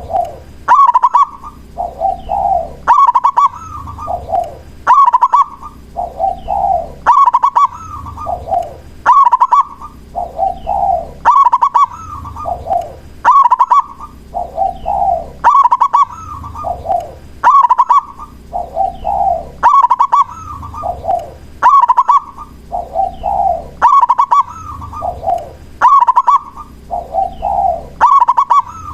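Zebra dove (perkutut) singing its cooing song over and over: each phrase, about every two seconds, is a quick rattling run of higher notes followed by lower coos.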